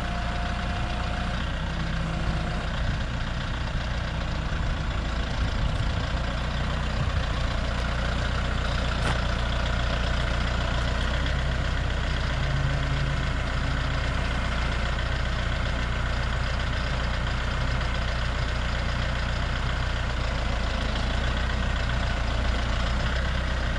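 An engine idling steadily, an even low hum that holds level throughout.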